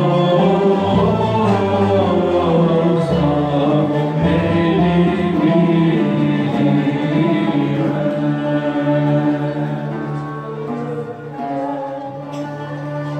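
Turkish classical music: several voices singing long, melismatic lines over instrumental accompaniment, growing somewhat softer in the last few seconds.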